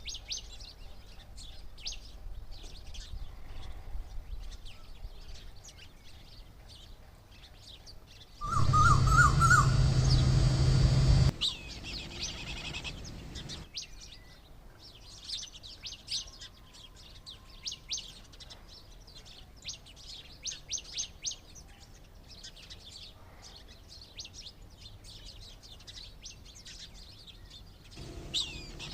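Small birds chirping, many short high chirps in quick runs. About eight seconds in, a loud noisy rush with a low hum breaks in for about three seconds and cuts off suddenly.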